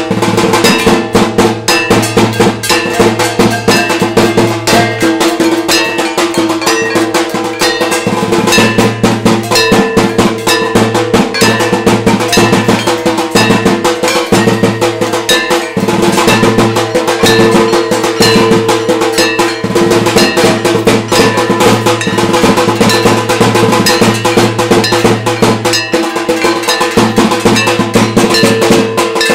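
Metal percussion struck rapidly and without pause, with drums, in the manner of puja ritual music. A steady sustained tone runs underneath.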